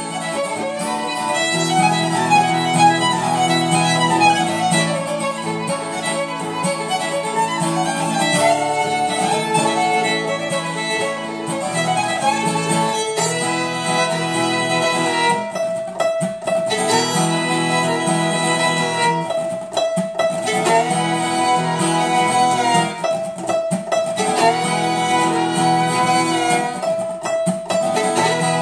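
Violin and acoustic guitar played as a duet: the violin bows a melody over the guitar's accompaniment. In the second half the melody settles on longer held notes.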